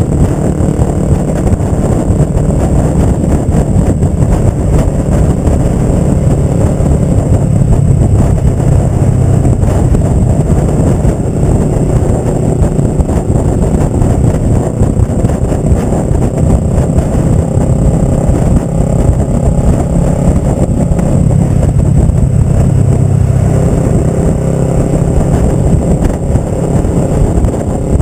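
Kawasaki ER-5's 500 cc parallel-twin engine running loud through a Delkevic Mini 8-inch slip-on exhaust while the bike is ridden along, its note rising and falling a little with the throttle.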